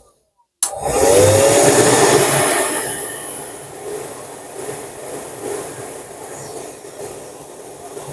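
Hooded hair dryer blowing on its high setting. After a brief gap it starts suddenly and loudly, then settles to a quieter, steady rush of air from about three seconds in.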